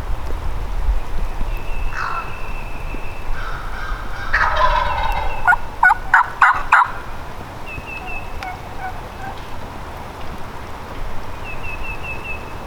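Wild turkey gobbler gobbling at close range: one loud, rattling gobble about four seconds in, lasting roughly two seconds. Small birds chirp with thin high notes before and after it.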